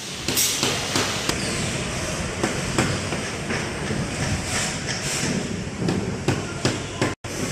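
Factory floor noise on a power-tool assembly line: a steady machine din with frequent irregular clicks and clanks of parts being handled. The sound drops out for a moment near the end.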